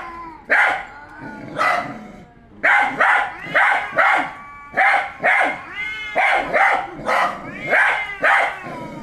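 Dog barking repeatedly, about a dozen loud barks coming one to two a second.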